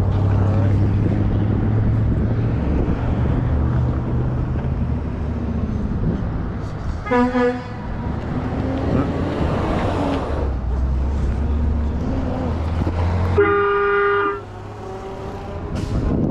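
Engine running with a steady low hum. About seven seconds in a vehicle horn gives a short double toot. Near the end comes a louder blast of about a second from an aftermarket air train horn, several tones sounding together as a chord, answering the honk.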